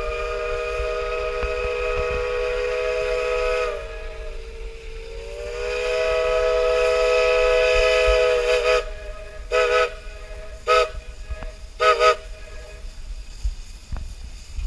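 Narrow-gauge steam locomotive's whistle sounding a chord of several notes: two long blasts, the first sagging slightly in pitch as it ends, then three short toots.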